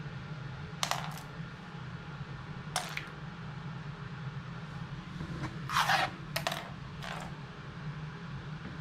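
Small hard plastic toys clicking and clattering in their plastic case, in short irregular knocks with the longest, loudest clatter a little past the middle. A steady low hum runs underneath.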